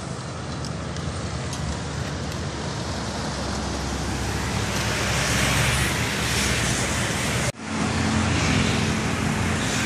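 Road traffic going by, swelling as a vehicle passes close about halfway through. There is a sudden brief break in the sound near the end, then the steady traffic hum again.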